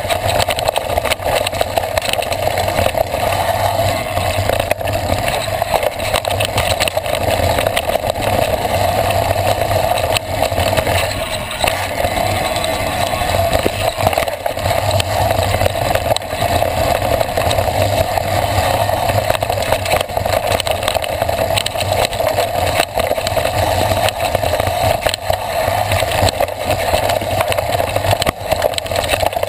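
Mountain bike descending a rough dirt trail, heard from a handlebar-mounted camera: a steady rush of wind and tyre noise with constant small knocks and rattles as the bike runs over the rough ground.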